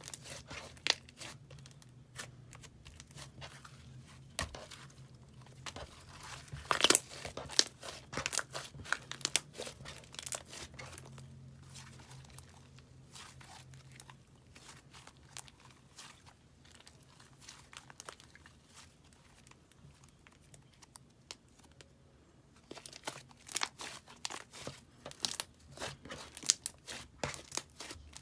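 Slime being squished and stretched by hand, giving dense irregular crackling and popping clicks, which thin out for several seconds in the middle before picking up again. A faint steady low hum sits underneath.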